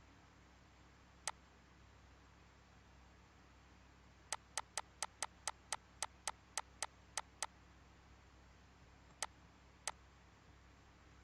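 A series of sharp clicks: a single click, then a quick run of about a dozen at roughly four a second, then two more, over a faint steady hum.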